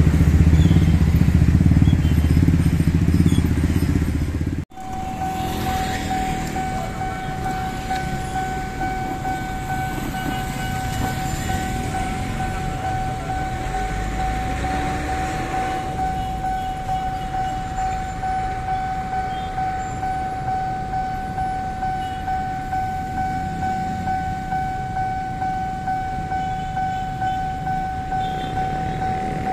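Railway level-crossing warning alarm sounding one steady high tone without a break, over the idling of waiting buses and motorcycles. For the first few seconds a loud low engine or motor rumble is heard, which cuts off abruptly.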